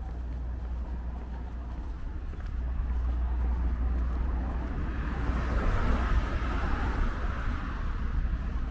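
Street traffic: a passing car's tyre and engine noise swells to a peak about six seconds in and then fades, over a steady low rumble.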